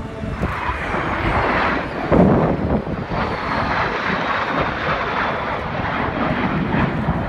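A formation of jet aircraft flying low overhead: loud rushing engine noise that swells within the first second, with a faint whine falling in pitch as they pass.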